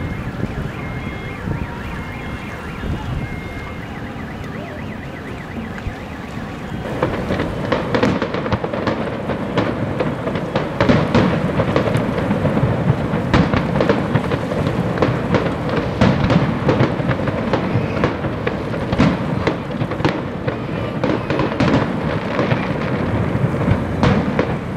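Aerial fireworks display: after a few seconds of steady background noise, about seven seconds in a dense, continuous run of booms and crackling bursts starts over a low rumble and keeps going.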